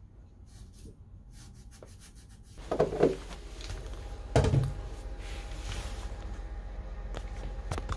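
Abrasive pad rubbing on the rusty steel propeller-shaft coupling flange, a rough scrubbing noise, with two short knocks about three and four and a half seconds in.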